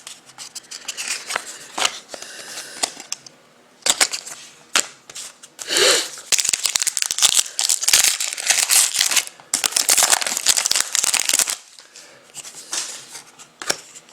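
Hockey trading cards being handled and sorted by hand: cards sliding and rubbing against each other with light clicks and rustling, busiest and loudest in the middle stretch.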